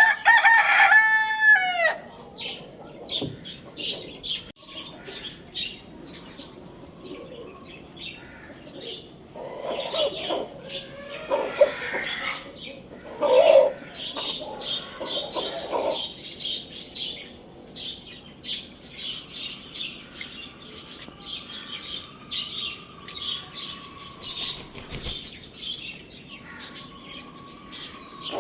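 A rooster crows loudly once at the start, its call falling in pitch at the end. After it come hens clucking, small birds chirping and wings flapping.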